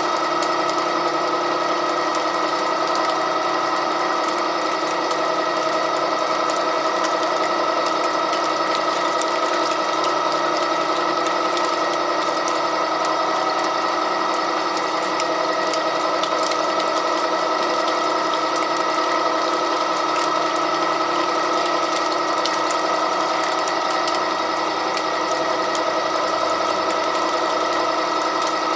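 Wheeler-Rex 6590 gear-driven pipe threading machine running steadily while its die head cuts a thread on the pipe, with a constant gear whine over the machine's mechanical clatter.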